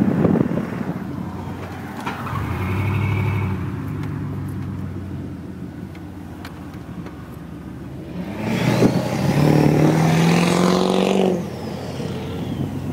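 Duramax turbodiesel V8 pickup accelerating hard, its engine note climbing slowly in pitch for about three seconds, with a high whistle over it. A shorter, lighter pull on the engine comes a couple of seconds in.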